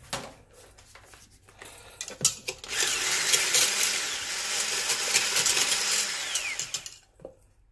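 Electric hand blender with a whisk attachment running in a plastic beaker, whisking an egg with sugar. The motor starts about three seconds in, runs steadily for about four seconds and stops near the end, after a few knocks of the beaker being handled.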